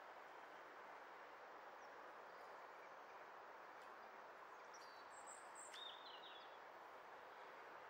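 Near silence: faint steady outdoor background hiss, with a few short, faint bird chirps about five to six seconds in.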